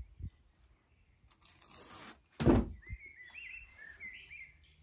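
Backing being peeled off foam-backed double-sided tape on wooden spacer battens: a brief tearing noise a little over a second in, then a louder knock as the battens and board are handled. Birds chirp in the background.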